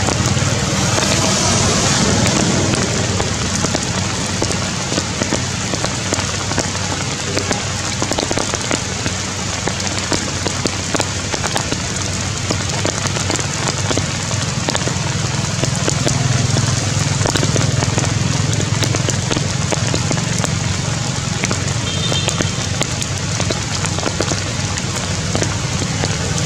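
Steady rain pattering on stone and leaves: a dense, even crackle of drops, with a steady low hum underneath.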